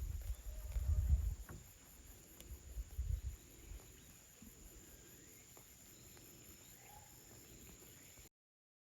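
Steady high trilling of insects such as crickets, with low rumbles in the first second and a half and again about three seconds in. The sound cuts off to silence near the end.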